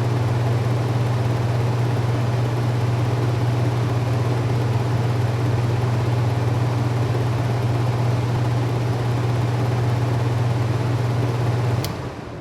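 Kitchen range hood fan running steadily, a rushing air noise over a strong low hum. Near the end a sharp click, and the fan noise falls away and fades.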